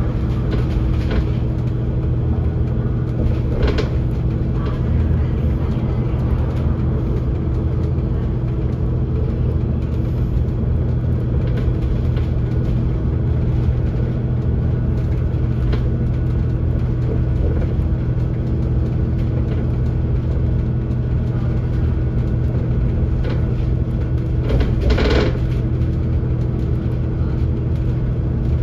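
Dennis Enviro500 MMC double-decker bus running steadily on the road, heard from inside the bus as a low, even engine drone. Short bursts of noise come about 4 seconds in and again about 25 seconds in, the second one the loudest moment.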